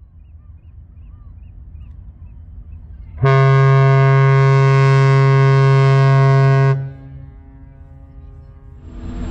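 A Cunard ship's horn sounds one long, deep blast of about three and a half seconds, starting about three seconds in and cutting off sharply, over a steady low rumble. Near the end another deep sound begins to swell.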